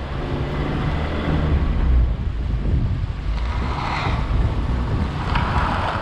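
A vehicle driving, heard from inside the cab: a steady low engine and road rumble, with two brief swells of higher noise about four and five and a half seconds in.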